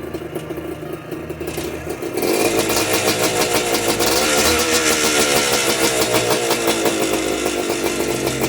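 The freshly rebuilt 1991 Suzuki TSR 125's single-cylinder two-stroke engine ticking over, then revved up sharply about two seconds in and held at high revs, easing back slightly toward the end.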